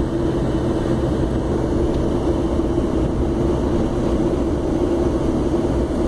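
Inside the cab of a 2005 Chevrolet Silverado with the 6.6 L LLY Duramax V8 turbo-diesel on the move: a steady drone of engine and road noise with a constant hum.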